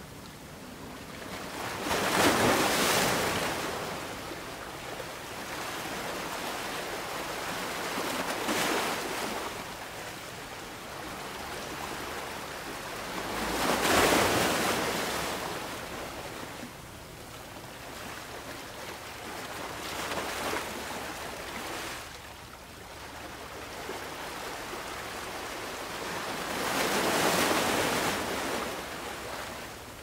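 Ocean surf breaking on a beach in slow surges about every six seconds, every second wave breaking louder than the one before.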